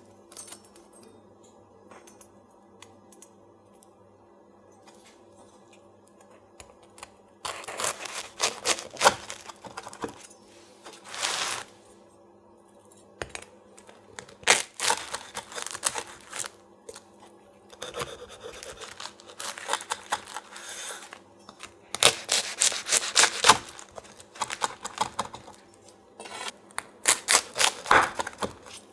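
A large kitchen knife cutting through the crisp, flaky crust of a baked puff-pastry tart, giving a dry crackling crunch. The cuts come in about six bouts from about seven seconds in, with quiet pauses between them.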